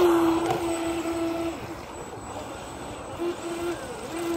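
Small electric RC speedboat's motor whining at speed, holding one pitch for about a second and a half, then cutting out and coming back in short bursts as the throttle is blipped.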